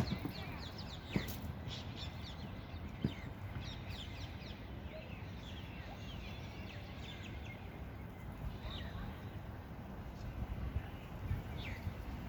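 Birds chirping: many short, quick falling chirps scattered throughout, over steady outdoor background noise.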